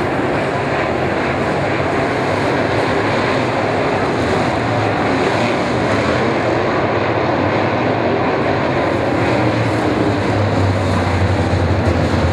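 Dirt late model race cars' engines running hard around a dirt oval, a steady dense drone of several cars at once. A deeper engine note grows louder from about ten seconds in as cars pass close.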